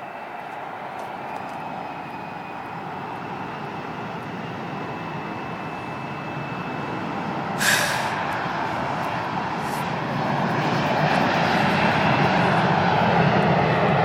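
Airliner engines growing steadily louder as the aircraft comes closer, with a thin steady whine in the first few seconds. A brief sharp burst of noise about eight seconds in.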